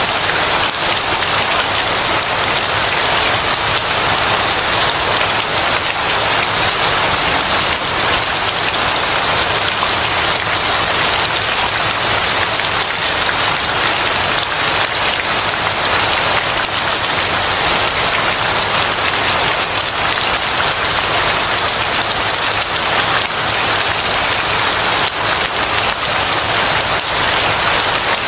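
Steady, heavy rainfall, a dense even hiss of raindrops pattering on a surface.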